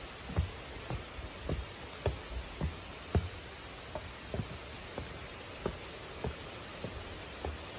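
Footsteps climbing wooden stairs: a steady series of dull thumps, a little under two a second, over a steady background hiss.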